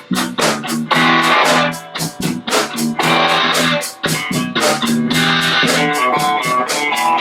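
Live rock band playing a song: electric guitar chords over bass, with many short sharp hits through the music and a few brief breaks between phrases.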